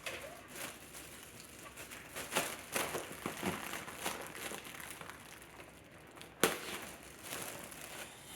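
A balloon being squeezed and handled as its gas is let out: irregular crinkling and crackling, busiest in the middle, with one sharp snap about six and a half seconds in.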